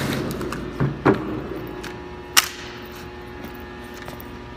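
A loud knock right at the start that fades out, two more knocks about a second in, and a sharp click about halfway through, over a steady low hum.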